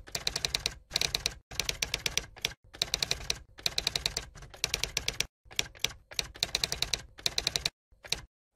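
Typewriter typing sound effect: rapid mechanical key clicks, about ten a second, in runs of half a second to a second with short pauses between them.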